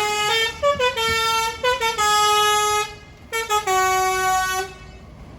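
A bus's basuri musical horn playing a tune: a quick run of stepped notes, then longer held notes with a short break in between, stopping about four and a half seconds in.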